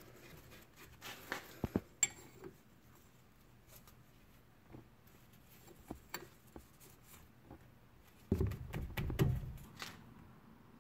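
Light metallic clicks and clinks of a wrench on a brake caliper's slide-pin bolt as it is fitted and turned. A little after eight seconds in comes a cluster of duller knocks with a low rumble, the loudest part.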